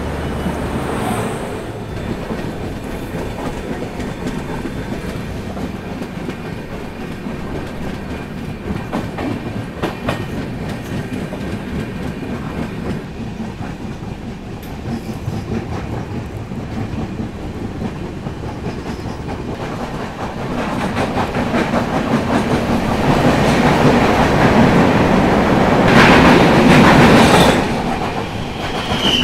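Mandovi Express LHB passenger coaches running along the track, a steady rumble of wheels on rails heard from an open coach door. The noise grows louder over the last several seconds, is loudest about two seconds before the end, then drops back.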